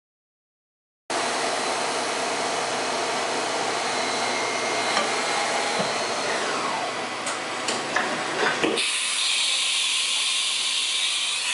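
Haas VF-3 vertical machining center running inside its enclosure, starting about a second in with a steady mechanical whir. A falling whine comes around six to seven seconds in, with a few sharp clicks. About nine seconds in the sound changes abruptly to a louder, steady hiss.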